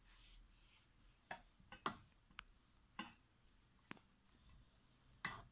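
Faint, irregular clicks and knocks of a wooden spoon against a frying pan while stirring a chicken, bacon and grated cheese filling, about seven in all.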